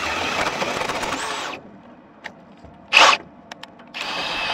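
Power drill turning a hole saw through metal deck plate, grinding steadily for about a second and a half before stopping. A short, sharp burst about three seconds in, then the drill cuts again near the end.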